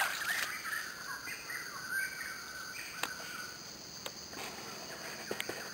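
Insects buzzing steadily at a high pitch, with short bird chirps in the first two seconds and a few sharp clicks later on.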